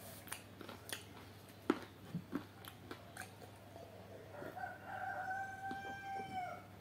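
A few soft mouth clicks and smacks from eating, then a rooster crowing once: a steady, held call of about two seconds that begins about four and a half seconds in.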